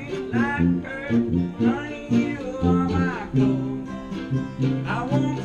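Small acoustic string band playing a country-bluegrass song: quick plucked strings over held tuba bass notes, with a melody line sliding in pitch above them.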